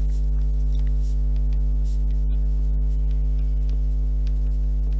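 Steady electrical mains hum in the recording, a low buzz with many even overtones, at a constant level. A few faint light ticks of a stylus writing on a tablet sit beneath it.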